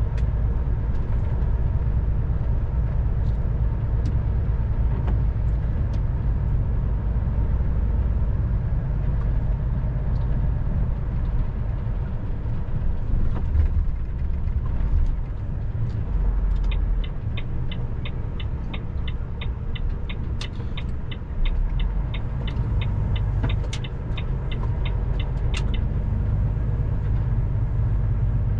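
A heavy vehicle's engine and road noise drone steadily, heard from inside the cab. A little over halfway in, a turn-signal indicator ticks about three times a second for roughly nine seconds as the vehicle nears a roundabout.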